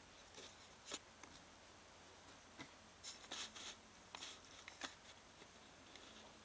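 Near silence with faint, scattered small clicks and brief rustles, most of them from about three to five seconds in.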